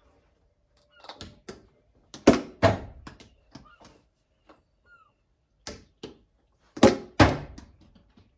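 Plastic Kwik Cricket ball thrown against a wall and struck with the plastic Kwik Cricket bat: sharp knocks coming in quick pairs, loudest about two seconds in and again near seven seconds, with quieter knocks between and a short echo off the walls.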